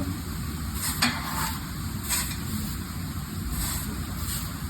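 A steady low mechanical hum with a few short clicks and scrapes, about four across the stretch, during work on a tire and rim.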